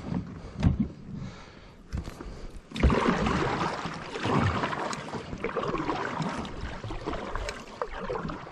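Kayak paddle strokes splashing and swishing through the water, with water sloshing against the hull; the strokes get louder and come more steadily from about three seconds in.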